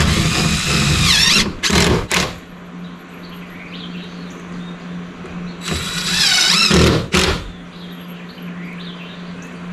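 Cordless drill driving screws into wooden siding: two runs of motor whine, each a second or two long and shifting in pitch as the screw goes in, the first followed by two short trigger bursts to seat it.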